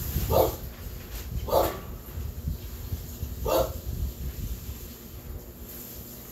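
A dog barking: three short, separate barks in the first four seconds.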